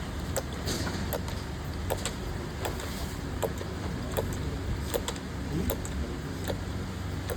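Factory noise: a steady low machine hum with sharp light clicks and clinks about once or twice a second, and a brief rising squeak a little after halfway.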